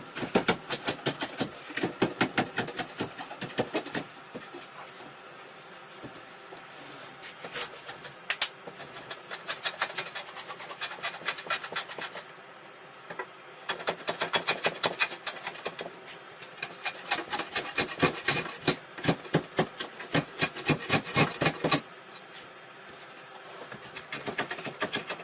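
Hand plane with a somewhat dull blade shaving the ends of wooden framing, in quick rasping strokes that come in three spells with short pauses between them.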